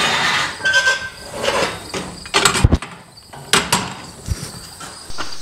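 Steel garage-door torsion tube with its spring being lifted and seated into the bracket cradles: scraping and clanking metal, a short squeak about a second in, and a few sharp knocks past the middle.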